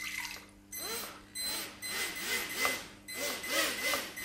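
Ladybird micro quadcopter's small motors spinning its propellers underwater, churning and splashing the water, with three of its four motors working. The motor whine rises and falls in pitch in several bursts about a second long.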